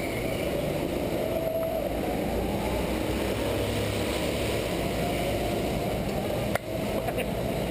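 Go-kart engines idling with a steady drone. A single short, sharp knock comes near the end.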